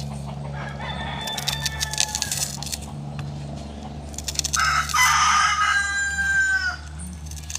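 A rooster crowing twice: a fainter crow about a second in, then a loud, long crow from about halfway that drops in pitch at its end.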